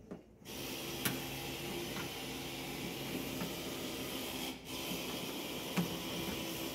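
A steady machine hum and hiss that starts abruptly about half a second in and runs on, with a few sharp clicks from the tailgate wiring boot and cable being handled.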